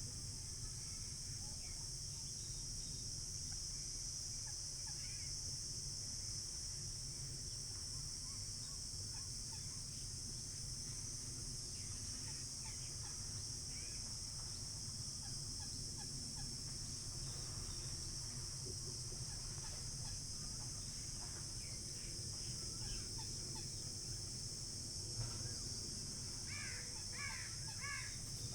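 Steady high chorus of crickets and other insects with a low rumble underneath, and scattered bird calls including crows cawing. A run of louder, repeated bird calls comes near the end.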